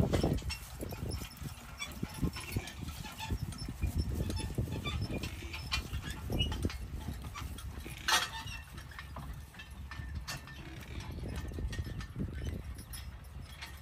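Team of two Belgian draft horses walking on grass pulling a wooden wagon: soft, irregular hoofbeats with the rattle and clink of the wagon and harness, and one sharper clank about eight seconds in.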